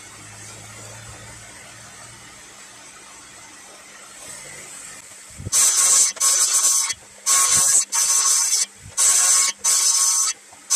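Table saw cutting softwood timber to form tongue-and-groove boards, heard as about five loud, high-pitched bursts of under a second each with short breaks, starting about halfway through. Before that there is only a faint, steady background hum.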